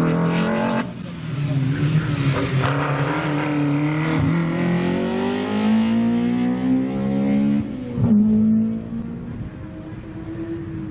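Slalom car's engine driven hard, its pitch climbing under acceleration and broken by brief dips at gear changes about one, four and eight seconds in, then easing off near the end.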